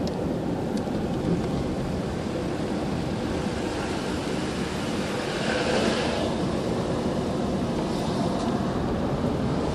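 Mercedes-Benz car driving along a narrow country road, heard from inside the cabin: a steady rumble of engine and tyre noise, with a brief rise in hiss a little past halfway through.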